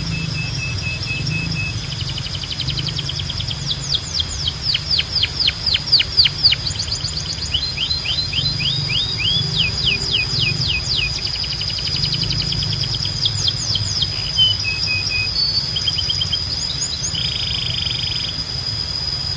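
Canary singing: rapid series of repeated downward-sweeping notes (rolls) in the middle, then shorter trills and a brief buzzy phrase near the end, over a steady low hum.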